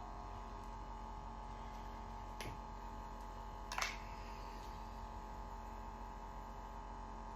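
Steady electrical hum, with two brief clicks or knocks: a faint one about two and a half seconds in and a louder one a little under four seconds in.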